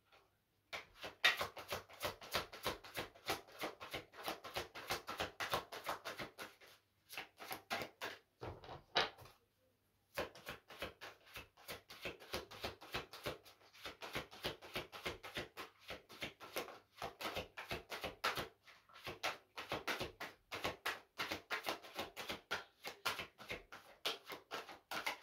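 A deck of oracle cards being shuffled by hand, overhand: rapid papery flicks and slaps of cards dropping from one hand into the other, in runs broken by a few short pauses about seven to ten seconds in.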